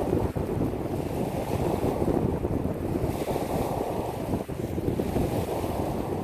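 Waves washing onto a pebble beach, largely covered by wind buffeting the microphone, which makes a heavy, gusting rumble.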